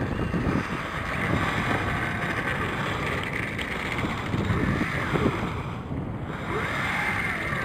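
Wind buffeting the microphone, over the faint whine of an E-flite Cub RC plane's electric motor, which glides up and down in pitch as the throttle changes, most clearly near the end.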